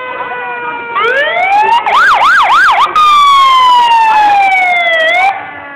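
Emergency vehicle siren, loud: it rises, warbles quickly up and down about three or four times a second, then drops into a long falling tone that cuts off about five seconds in.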